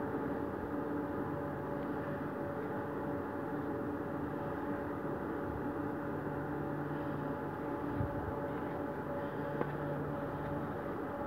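Steady low mechanical hum with a few unchanging tones in it, like a machine or engine running without change.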